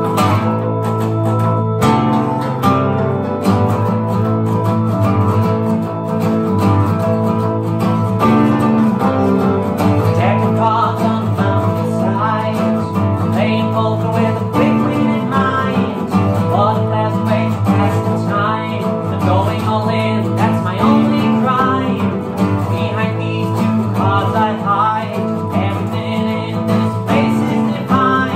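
A small band playing a song on two strummed acoustic guitars with a keyboard.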